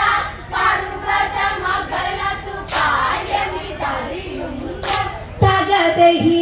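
A group of women singing an Onamkali song in chorus, with two sharp hand claps about two seconds apart in the middle.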